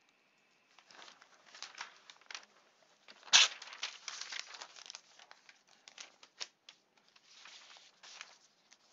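A sheet of three-hole-punched lined paper being handled and laid flat on a desk: a string of rustles and crinkles, with one sharp slap of paper about a third of the way in.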